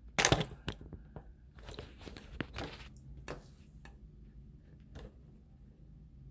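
Handling noise from a plastic bidet seat being moved and positioned on the toilet: a string of irregular clicks and knocks, the loudest just after the start, thinning out over the last second or so.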